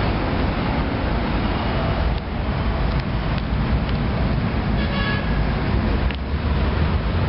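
Steady low rumbling outdoor background noise, with faint brief tones about five seconds in.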